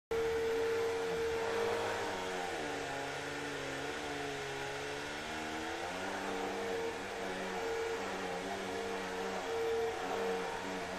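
Vacuum cleaner running: a steady motor whine over airflow hiss, its lower tones wavering in pitch as the load on the motor changes.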